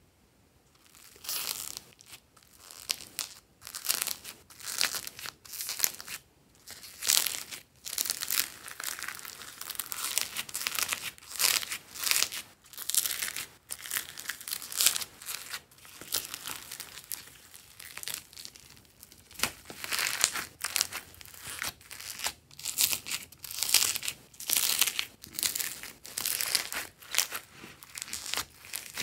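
Purple slime packed with small foam beads being squeezed, pulled and pressed by hand, giving repeated bursts of crunchy crackling from the beads, about one a second.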